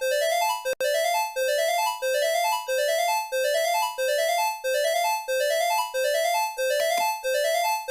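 Electronic emergency alert alarm tone looping: a rising three-note figure with a keyboard-like timbre, repeating about every two-thirds of a second at a steady level. A brief click with a momentary dropout about three-quarters of a second in.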